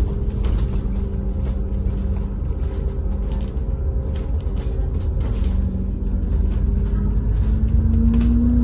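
Bus running with a steady low rumble and engine hum, the hum rising slightly in pitch near the end, with scattered light clicks and rattles.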